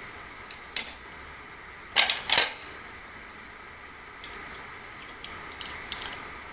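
Metal parts of a Sharp Innova air rifle clinking and clanking as they are handled and fitted: a single clink about a second in, a louder cluster of clanks around two seconds, then a few light ticks.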